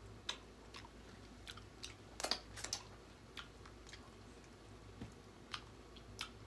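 Close-up eating sounds of someone eating seafood-boil crab legs: scattered small clicks and cracks of chewing and picking at the shells, with a short cluster of louder cracks a little over two seconds in.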